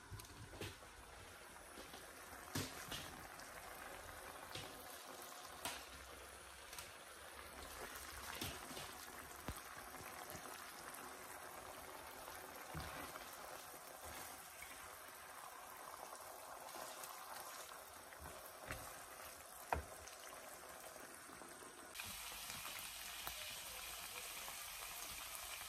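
Marinated boneless chicken bubbling and sizzling in its juices in a wok, with a few faint clicks. About 22 seconds in, the sizzle turns brighter and a little louder.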